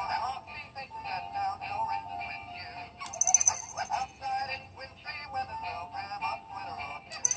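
Hallmark 2007 Jingle Pals animated plush toy playing its Christmas song: character voices singing over music. Bells jingle briefly about three seconds in and again at the end.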